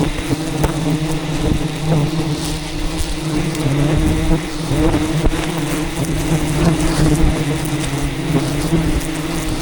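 Steady low buzzing hum of a mass of wild honey bees around their disturbed hive, with scattered knocks and rumble from handling close to the microphone.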